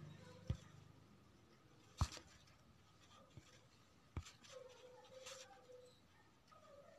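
Near silence with a few faint, sharp taps spread over several seconds: fingers tapping and handling a smartphone touchscreen.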